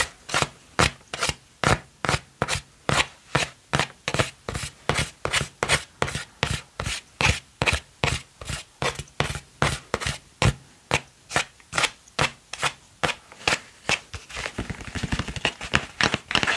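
Fingers tapping on a gold printed box, an even run of sharp taps at about three a second.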